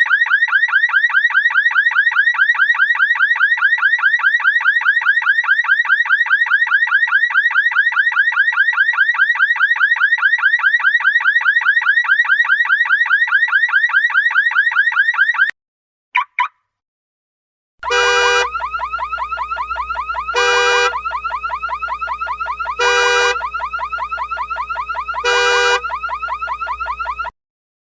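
Car alarm sounding: a rapid repeating warble cycles over and over for about fifteen seconds and cuts off, then a brief chirp. After a short pause a second alarm pattern plays, a steady tone with a louder beep about every two and a half seconds, and stops near the end.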